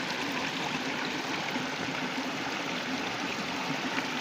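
Water of a stream running steadily.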